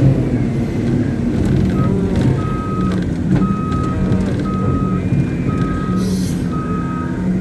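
Reverse alarm of a Caterpillar 777D haul truck beeping, one even half-second beep about every second, over the steady running of the truck's diesel engine. A short hiss cuts in near the end.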